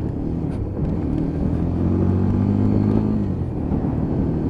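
Lexmoto Ranger motorcycle engine running under way through its newly fitted exhaust. The engine note rises about a second in, holds, and eases back near the end.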